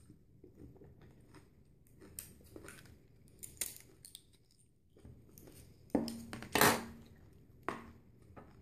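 Crab shell being cracked and picked apart while eating: a series of sharp cracks and crunches. The loudest burst comes a little past halfway and another follows shortly after.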